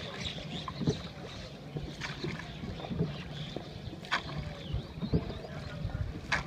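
Boat moving on the river: a sharp knock about once a second over a steady low hum.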